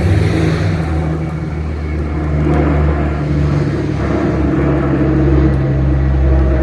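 De Havilland Canada Dash 8-300 twin-turboprop climbing out after takeoff, its engines and propellers giving a loud, steady low drone with a slight shift in pitch.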